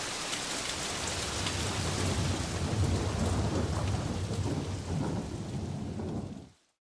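Heavy downpour of rain with a low rumble of thunder swelling through the middle, then quickly fading out to silence near the end.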